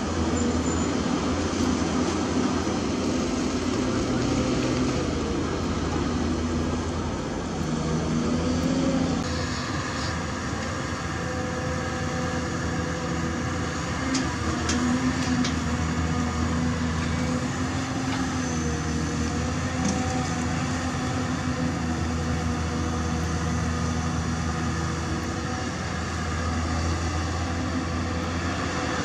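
Diesel engines of crawler excavators running steadily while digging, a continuous hum with a few held tones. First a Hyundai excavator, then, after a change about nine seconds in, a CAT 320D L long-reach excavator, with a few faint clicks around fourteen to fifteen seconds in.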